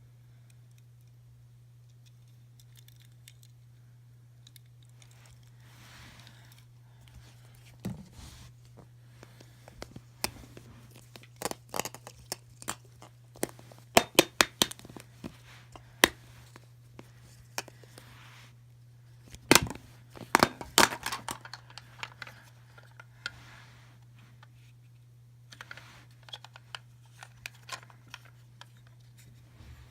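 Hands handling toys and packaging: scattered sharp clicks and taps of plastic with some crinkling and tearing of wrappers, busiest in the middle, over a steady low electrical hum.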